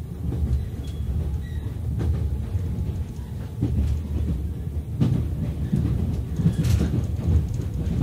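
Cabin noise of a 485-series electric limited express train running: a steady low rumble with a few sharp clicks from the wheels.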